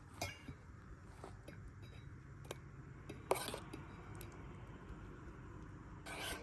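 Cookware and utensils clinking and knocking, a few separate sharp strikes with the loudest a little past halfway, and a short scraping sound near the end.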